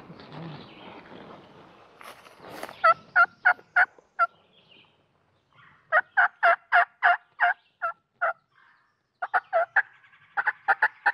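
Turkey yelping: three runs of loud, evenly spaced notes, about three a second, each run a couple of seconds long, following a soft rustle in the first two seconds.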